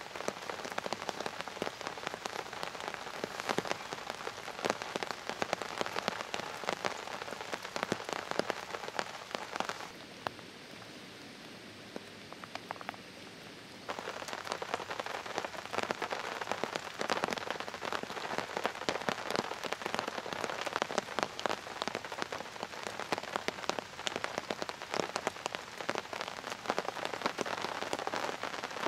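Steady rain falling on a tarp shelter and the forest floor, with many separate drop hits. It goes quieter for about four seconds a third of the way in, then returns as before.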